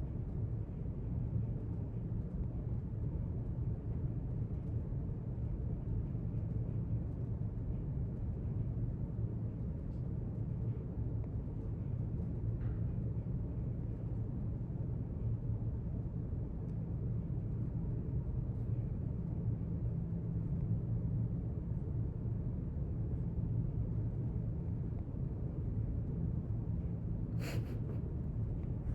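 Library room tone: a steady low rumble, with one brief sharp sound near the end.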